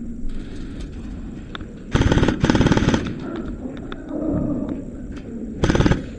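Airsoft rifles firing three short full-auto bursts: a rapid clatter of shots about two seconds in, again just after, and once more near the end.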